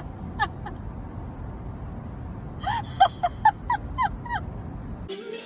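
Golden retriever whining in short cries that fall in pitch: one on its own, then a quick run of about eight. A steady low rumble from the car runs beneath and stops near the end.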